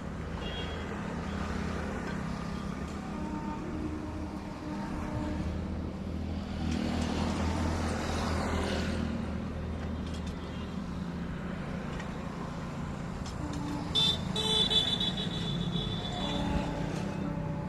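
Road traffic: a steady engine rumble, a vehicle passing by around the middle, and a short horn toot a few seconds before the end.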